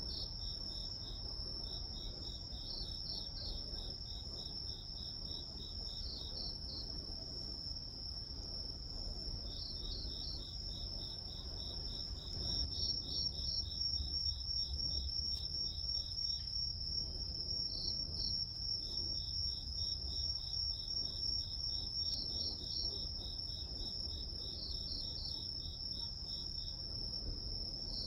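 Chorus of grass insects. One steady, unbroken high trill runs throughout, while another insect's rapid pulsed chirps come in runs of a few seconds. A low rumble lies beneath.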